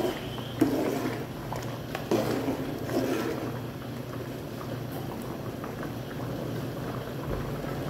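Pot of mung bean soup boiling, stirred with a metal spoon that scrapes and knocks against the metal pot a few times in the first three seconds. After that the soup bubbles on its own over a steady low hum.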